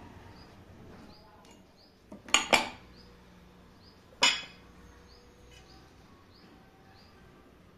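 Metallic clinks as a ceiling-fan motor's stator and shaft are handled on a wooden stool: a quick run of three clinks a little over two seconds in, and a single clink about two seconds later.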